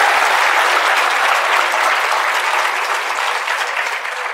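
Audience applause, a steady clapping that slowly dies away toward the end.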